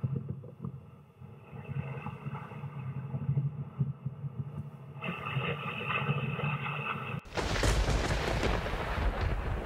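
Soundtrack of sustained droning tones, cut off abruptly about seven seconds in by a loud, deep rumbling boom.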